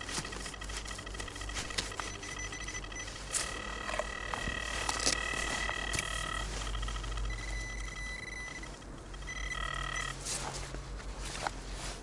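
XP Deus metal detector giving steady high-pitched target tones: one long tone held about three seconds near the middle, then several shorter ones, with scattered sharp clicks and knocks from handling or digging.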